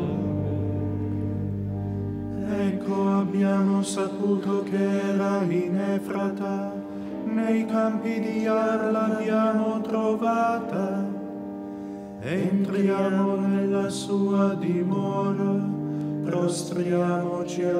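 Byzantine-style liturgical chant: voices sing a slow melody over a long-held drone note that shifts pitch only now and then.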